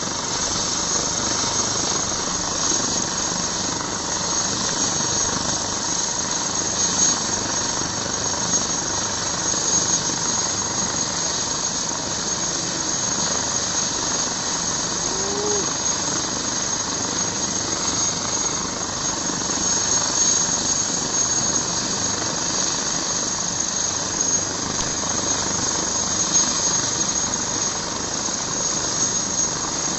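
Airbus fenestron-tail twin-turbine helicopter running on the ground with its rotor turning: a steady, high-pitched turbine whine over a constant rushing noise.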